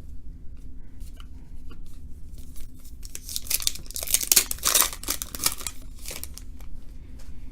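A trading card pack's wrapper being torn open and crinkled, loudest from about three seconds in for about three seconds, between light clicks of cards being handled.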